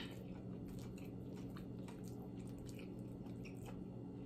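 A person chewing food close to the microphone, with soft wet mouth sounds and faint scattered clicks over a low steady hum.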